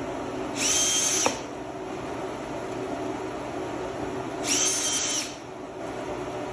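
Power drill driving two screws into wood, in two short runs of under a second each; the motor's whine rises to speed, holds and winds down each time.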